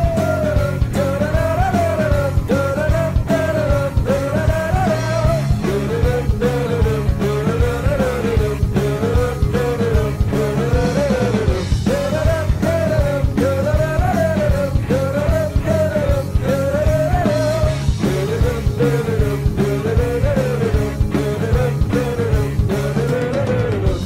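Ice hockey goal song celebrating a home goal: rock music with a steady drum beat and a melody that repeats a short rising-and-falling phrase about once a second.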